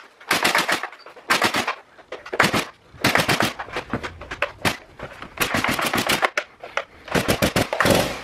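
Two-stroke engine of a Stihl MS290 chainsaw with an MS390 top end, sputtering and backfiring in about six ragged bursts of rapid pops as it is pull-started, each time firing briefly (once for nearly two seconds) and dying again. Its decompression valve pin broke and the owner suspects it has damaged the cylinder or piston.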